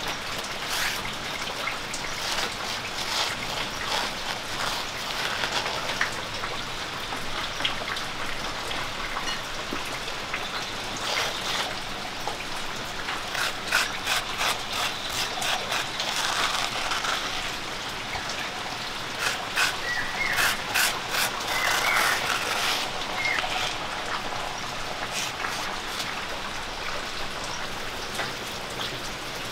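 Light scrapes and taps of roasted rice powder being handled in a stone mortar and scooped into a wooden bowl, over a steady outdoor hiss, with a few short high chirps about two-thirds of the way in.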